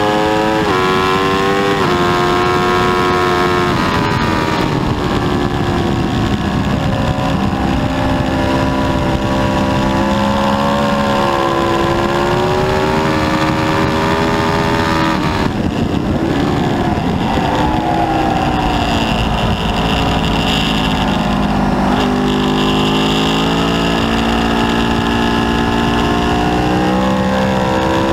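2010 Aprilia RSV4's V4 engine at speed on track, rising in pitch as it accelerates, dropping in steps at gear changes and falling away when it slows for corners, with a steady rush of wind noise underneath.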